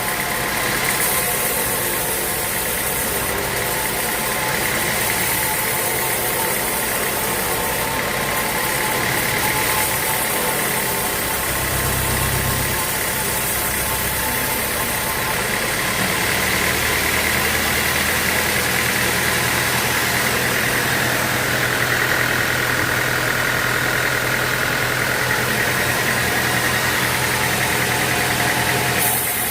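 Sawmill machinery running steadily while sawing teak logs: a motor hum under a high saw whine that dips lower in pitch about two-thirds of the way through.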